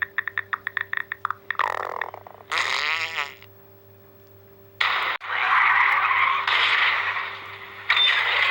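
Comedic stomach-growl sound effects, the sign of hunger. A fast rattle of clicks comes first, then a short groan that rises and falls. After a pause of about a second, a long, loud noisy growl runs for three to four seconds.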